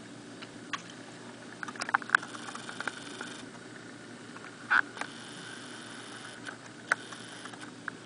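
Steady hiss of blizzard wind and blowing snow, broken by scattered sharp ticks and clicks, the loudest about two seconds in and again near five seconds.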